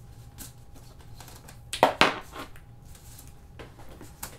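Clicks, rattles and rustling of a microphone blimp windshield being assembled by hand, with two sharp clattering knocks close together about two seconds in.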